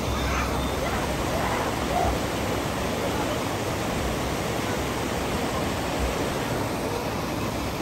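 Fast mountain river rushing over boulders: a steady white-water rush with no let-up. Faint voices are heard in the first couple of seconds.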